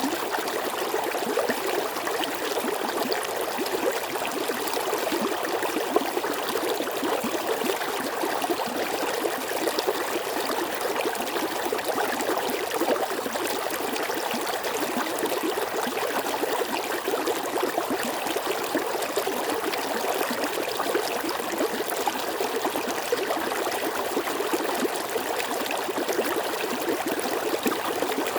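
Water flowing in a stream, a steady rushing with fine gurgling and splashing detail.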